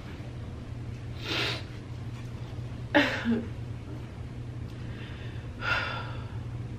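A woman holding back tears: three sharp indrawn breaths, the middle one loudest with a brief catch in her voice.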